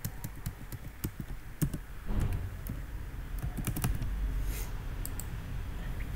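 Computer keyboard keystrokes and clicks in quick, irregular taps, densest in the first two seconds and sparser after. A steady low hum sets in about two seconds in.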